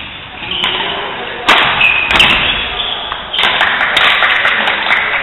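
Badminton doubles rally: several sharp racket hits on the shuttlecock, with short high squeaks of shoes on the court floor between them, echoing in the hall.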